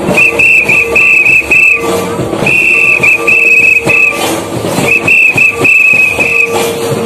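Santal folk dance music: a laced barrel hand drum beating out a quick rhythm under a shrill, high piping melody played in three phrases of about a second and a half each, with short breaks between them.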